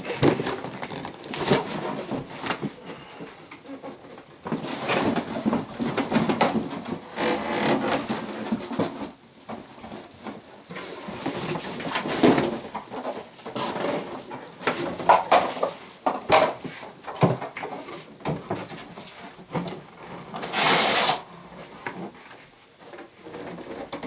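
Cardboard box and plastic wrapping being handled during unpacking: irregular rustling, crinkling and scraping with knocks of cardboard, ending in a loud crinkling rush of plastic near the end.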